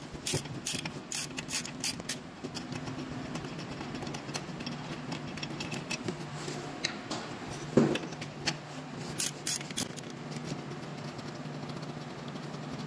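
Half-inch ratchet clicking as a 17 mm caliper bracket bolt is turned out, a quick run of clicks at first, then scattered single clicks, over a steady low hum.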